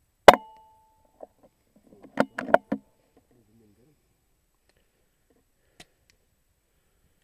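A single sharp air-rifle shot with a brief metallic ring. About two seconds later comes a quick run of four or five metallic clicks: the rifle's bolt being cycled to load the next pellet.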